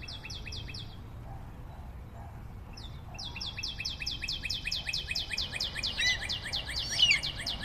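A bird singing a rapid series of evenly repeated, descending chirps, about seven a second. It pauses about a second in, then starts again with a long run. Other chirping calls join near the end.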